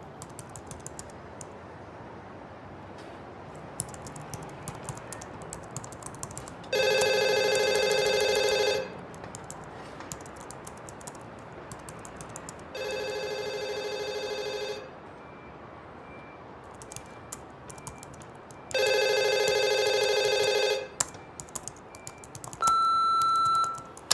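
A telephone rings three times, each ring about two seconds long and about six seconds apart, the second one quieter. Near the end comes a single steady beep of about a second: an answering machine starting to record a message. Laptop keyboard typing clicks are heard throughout.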